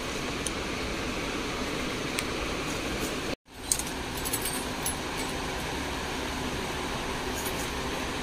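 Steady fan-like room noise in a shop, with a few faint clicks. It drops out to silence for a moment about three and a half seconds in, where the recording cuts.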